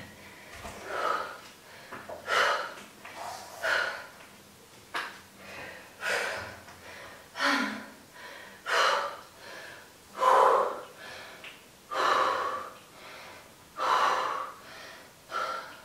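A woman breathing hard, with deep, gasping breaths about every second and a half: out of breath, recovering from a set of exercise.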